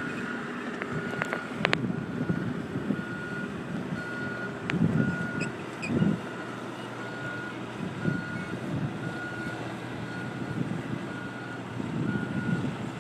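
Mini excavator's travel alarm beeping steadily, about once a second, while the machine tracks across the sand, over a low rumble. A few sharp clicks come about one and a half seconds in.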